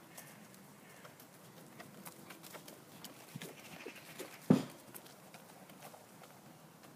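A horse trotting on a sand arena, its hoofbeats faint soft thuds, with one loud snort about four and a half seconds in as it passes close by.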